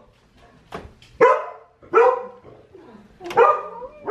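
A dog barking: about four short, sharp barks spread across a few seconds.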